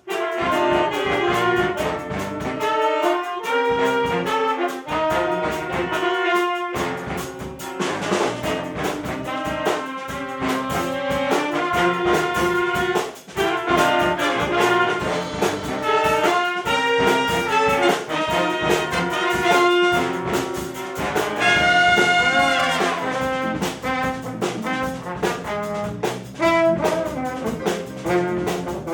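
Jazz big band playing live, trombones and trumpets in full ensemble over a drum kit in a funk-jazz groove, with punchy horn stabs and a brief break just after the middle.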